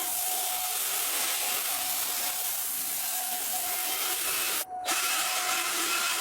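A steady hiss with a faint steady tone beneath it, from a workshop process on wood. It breaks off for a moment a little under five seconds in and starts again.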